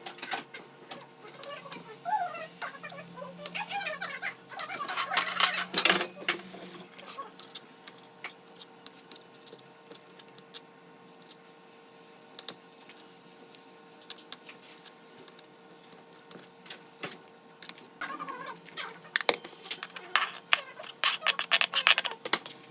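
Scattered clicks, taps and rustles of kitchen handling while a salad is prepared, busiest for a few seconds early on and again near the end, over a faint steady hum.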